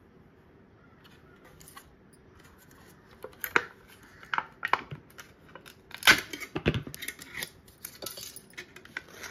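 Curd being scraped and tapped out of a small plastic cup onto a cotton cloth: irregular clicks, scrapes and knocks of the plastic cup, starting a few seconds in and loudest about six seconds in.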